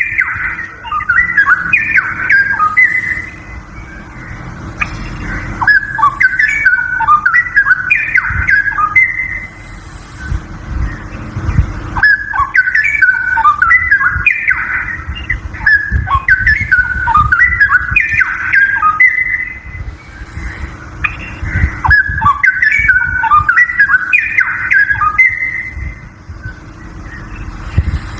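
Straw-headed bulbul (cucak rowo) singing: loud warbled phrases of quick rising and falling whistled notes, each about three seconds long, repeated every five or six seconds over a low background rumble and a steady hum.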